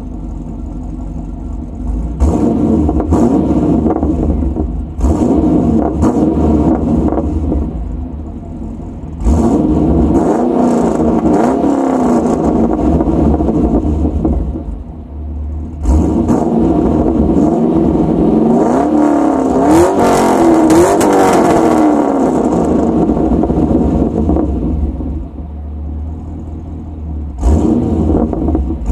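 2009 Pontiac G8 GT's 6.0 L L76 V8, breathing through long-tube headers, high-flow cats, an X-pipe and Solo resonators and axlebacks, is revved in place. It idles at first, then gets a few short blips, then longer held revs that climb and fall several times in the middle, and one more blip near the end.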